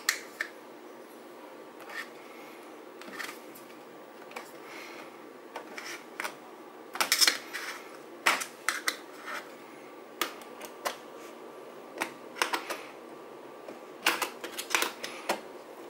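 Flathead screwdriver prying at the bent-over lip of a Honda CT70 speedometer's stainless bezel, a run of irregular sharp metal clicks and scrapes, thickest about halfway through and near the end.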